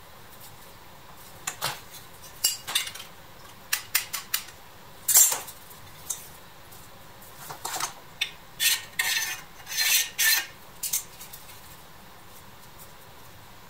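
Pressed-steel parts of a vintage Tonka toy tractor clinking and scraping against each other as they are handled and fitted together: a string of light metallic clicks and rattles, the loudest about five seconds in.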